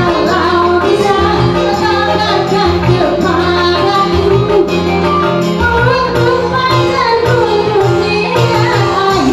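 Music: a song with a singer over instruments and a steady beat.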